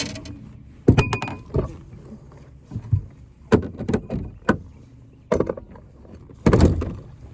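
Irregular knocks and clunks of people and gear moving about in a small fishing boat, about eight in all, with a longer clatter near the end.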